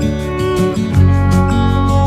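Background music: an acoustic-guitar song with a steady beat, the chord changing about a second in.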